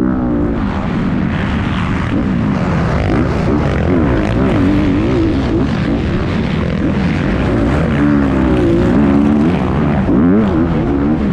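Motocross bike engine running hard, its pitch rising and falling over and over as the throttle opens and closes.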